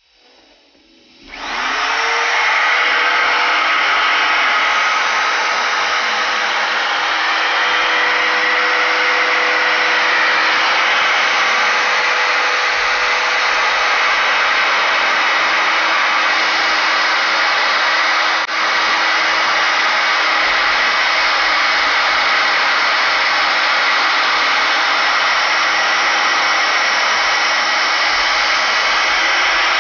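Bosch PHO 20-82 electric hand planer, mounted upside down as a small jointer, switched on: it spins up with a rising whine about a second in, then runs steadily at full speed while a wooden lath is fed across its cutter block.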